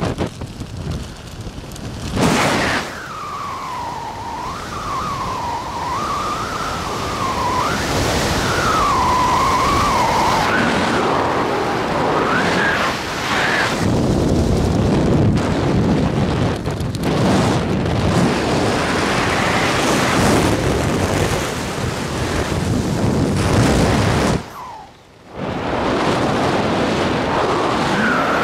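Wind buffeting a helmet-mounted camera's microphone while flying under an open parachute. For about the first half a wavering whistle rises and falls in pitch over the wind. The sound briefly drops away near the end.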